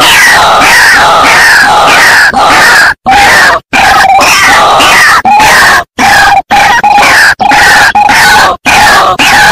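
White-breasted waterhen calls played as a bird-trapping lure recording. A loud, fast run of repeated notes, cut by a few brief silent gaps.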